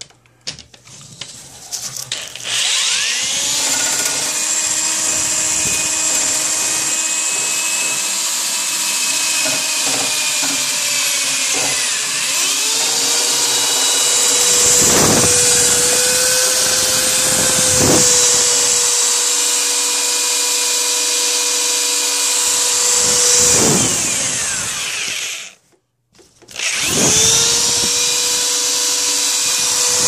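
Power drill spinning a rotary brush on a fiberglass rod inside a metal dryer vent pipe, its motor whining steadily as the brush scrubs the pipe. It spins up a couple of seconds in, eases off briefly about halfway, with two sharp knocks, then cuts out and starts again near the end.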